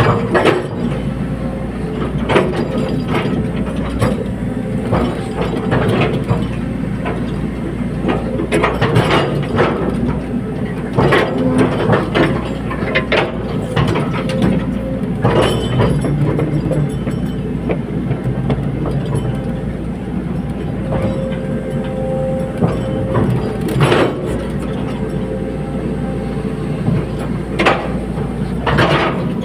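Caterpillar 320D hydraulic excavator at work: its diesel engine runs steadily under repeated metallic clanks and knocks.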